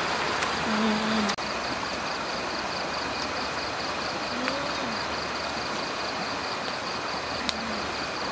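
Outdoor night ambience: an even hiss under a high, steady, pulsing insect trill, with a few short low calls. A brief dropout comes about a second and a half in.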